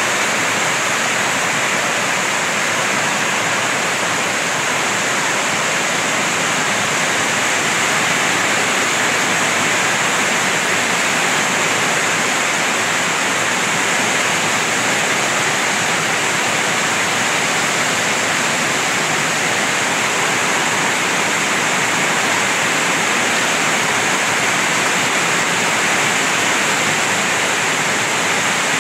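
Heavy typhoon rain falling in a steady downpour, with runoff pouring off a corrugated metal roof edge.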